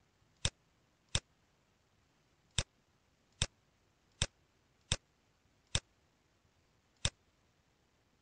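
Computer mouse button clicking: eight single sharp clicks at uneven intervals, roughly one a second, over quiet room tone.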